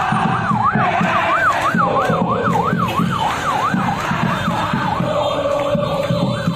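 Electronic siren in fast yelp mode, sweeping up and down about three times a second and fading out about five seconds in, over the noise of a large crowd.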